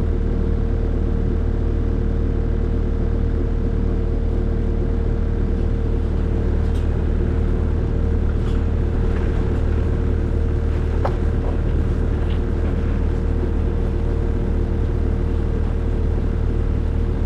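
Skid steer engine running steadily as the machine is driven, with a few light clicks and clanks about halfway through.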